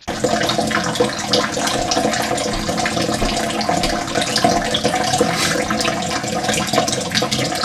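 Kitchen faucet running into the sink: a steady rushing hiss of water.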